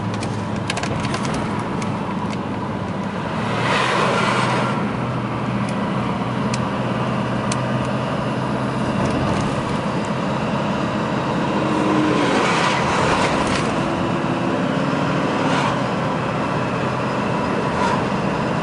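A vehicle driving along a highway: steady tyre and road noise with a low engine hum, swelling slightly a couple of times.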